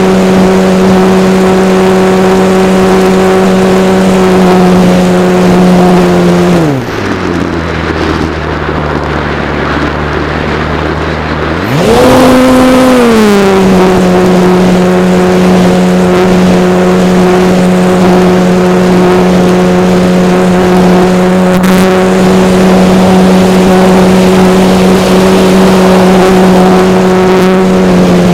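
Model airplane engine running at a steady high buzz in flight, throttled back about seven seconds in to a low idle for about five seconds, then opened up again with a brief surge before settling back to a steady high pitch; it throttles down once more at the very end.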